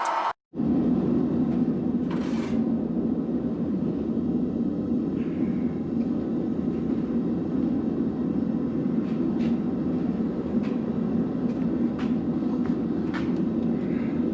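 A forge running steadily with a dense, low rumbling rush of noise, with a few faint metallic ticks in the second half.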